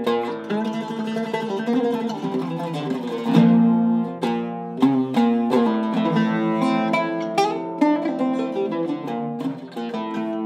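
Zeryab oud with a cedar top and African rosewood back, played solo with a plectrum in a melodic improvisation of plucked notes. A stretch of fast tremolo picking comes in the first three seconds, then a strongly struck low note.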